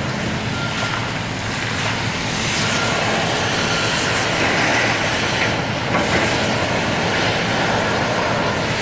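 Heavy diesel excavator working scrap metal: engine running under load with metal clanking and scraping, getting louder about two and a half seconds in. A backup alarm beeps faintly.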